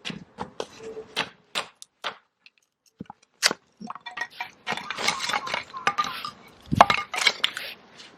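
Firewood being worked into kindling: sharp wooden knocks and clicks, then a busier stretch of cracking and scraping from about four and a half seconds in, with one heavy knock near seven seconds.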